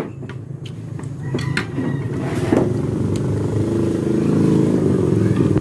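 An engine running steadily, growing louder in the second half, with a few light clicks over it.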